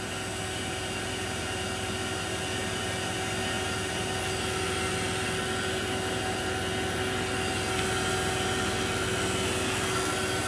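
Fieldpiece vacuum pump running steadily, a constant mechanical drone with a few steady whining tones, as it evacuates the refrigerator's refrigerant circuit down to around 500 microns.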